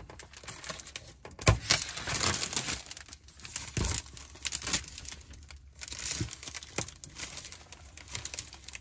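Clear plastic sheeting over a camper window being pulled off and handled, crinkling and tearing in irregular rustles, with a couple of dull knocks.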